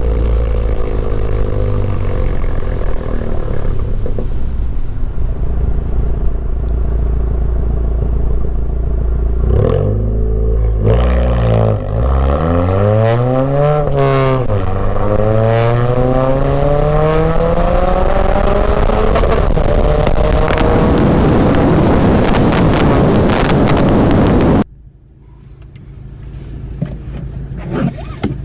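Turbocharged engine of a 10th-gen Honda Accord, straight-piped with the muffler and resonator deleted, under hard acceleration. The revs rise and drop sharply several times through quick shifts, then climb in one long pull. The sound cuts off suddenly near the end, leaving quieter running.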